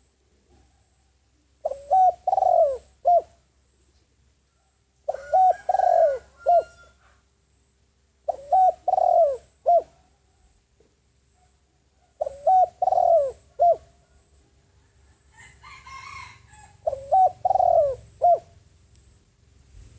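Spotted dove cooing its territorial song: five phrases of three or four low coo notes, repeated every few seconds with pauses between. A brief higher, rougher sound comes just before the last phrase.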